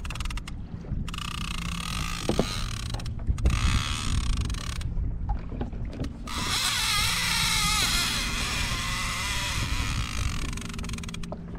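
Shimano Talica 16 lever-drag fishing reel buzzing in two long spells, one from about a second in and another from about six seconds in, as a hooked fish takes line. Steady wind and water noise run underneath.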